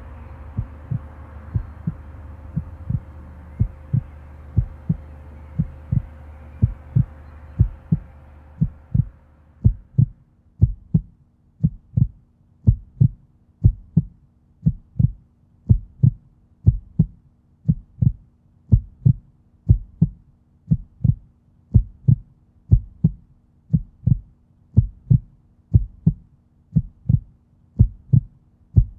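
Steady low heartbeat-like pulse, about two thumps a second, over a background hiss that stops about nine seconds in, after which a low steady hum carries on under the beat.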